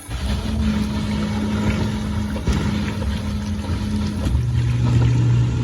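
Dishwasher pump motor starting up and running: a steady hum over a churning rumble, the hum dropping to a lower pitch about four seconds in.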